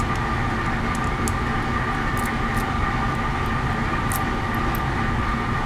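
Steady, loud shipboard machinery drone with a few constant hum tones running through it. A handful of faint small clicks sit on top.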